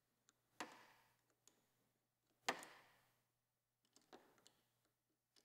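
Near silence broken by a few faint metal clicks, two of them clearer at about half a second and two and a half seconds in. They come from a motorcycle clip-on handlebar being worked loose on its fork tube.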